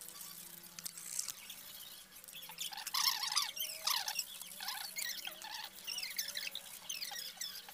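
Hand carving blade shaving a teak wooden chain link, giving a quick, irregular run of squeaks with the strokes, starting about two and a half seconds in and loudest soon after.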